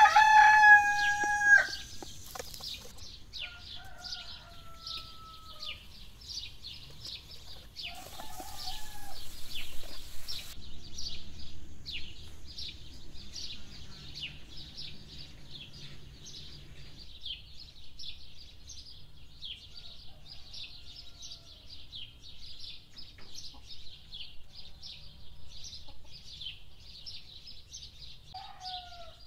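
A rooster crows loudly once, a held call of about a second and a half, followed by fainter fowl calls about four and eight seconds in. Under it all runs constant high chirping of small birds.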